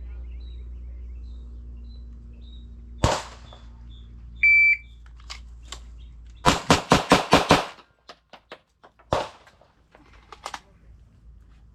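A shot timer beeps once, a short high tone, and about two seconds later a Glock 17 pistol fires six 9mm shots in rapid succession in just over a second. This is a Bill drill, timed at 3.09 seconds from beep to last shot. A single sharp bang comes a second or so before the beep, and fainter shots follow the string.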